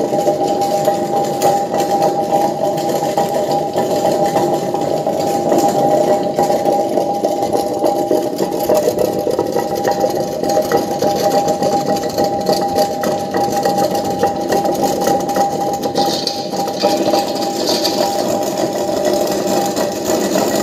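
Commercial tilting wet grinder running: a steady motor hum with a constant high tone.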